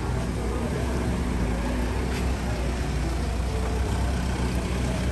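Pickup truck engine running slowly at low revs, a steady low rumble that cuts off at the end.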